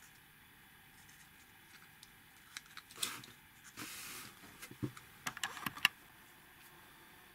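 Small kit pieces from a wind-up toy truck model being handled and pressed together by hand: scattered light clicks with a short rustle about four seconds in, then a quick run of clicks near the end.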